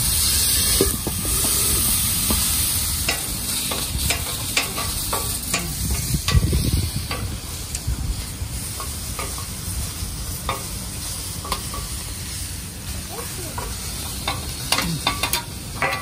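Lobster meat sizzling on a steel teppanyaki griddle. A loud hiss of steam comes in the first couple of seconds as liquid is squirted onto the hot plate, then a metal spatula and fork clink and scrape against the steel many times.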